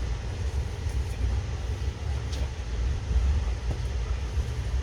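Amtrak Pennsylvanian passenger train running along the track, heard from inside the coach as a steady low rumble.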